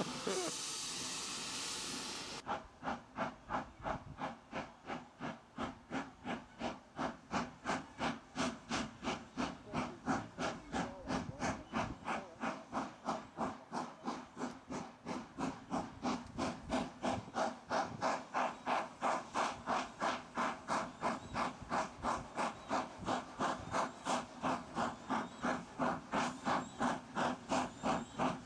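A loud steam hiss for the first two seconds, then a saddle-tank steam locomotive hauling a goods train, its exhaust beating evenly at about three beats a second.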